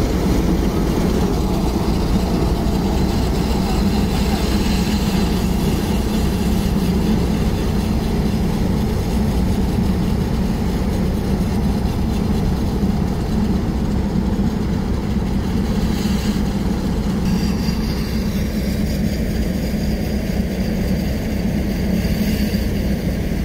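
Tractor-driven thresher running steadily under a Fiat tractor's diesel engine: a continuous loud, even mechanical drone of engine and threshing drum.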